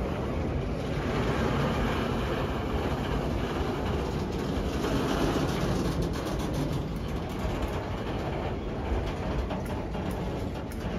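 Autorack freight cars rolling past at close range: a steady rumble of steel wheels on rail, with sharp clicks through the second half.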